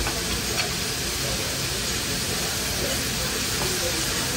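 Beef searing on a hot teppanyaki griddle: a steady hissing sizzle as steam rises off the plate, with a couple of light clicks near the start.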